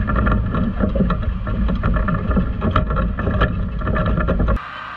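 Wind buffeting the microphone: a loud, gusty low rumble with irregular thumps, cutting off abruptly near the end.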